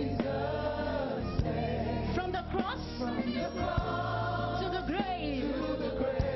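Gospel choir singing a praise-and-worship song over a band with bass and drums.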